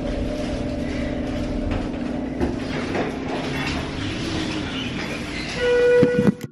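Hotel elevator car running, with a steady hum and rumble, then a single loud chime near the end as it arrives at the floor.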